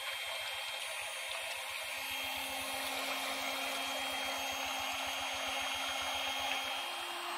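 Electric hand mixer running steadily, its beaters churning coconut oil that has had KOH powder added to lift water and fat out into the foam. A steady motor hum with a whirring hiss over it; the hum steps up a little in pitch near the end.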